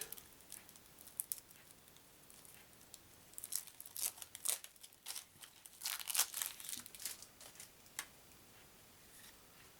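Plastic wrapper crinkling and tearing as it is worked off a stack of new playing cards, in scattered short crackles. It is quiet, with two busier spells about four and six seconds in.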